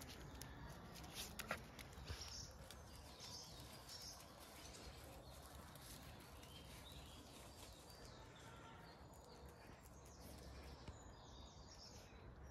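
Near silence: faint outdoor ambience with distant birds chirping now and then.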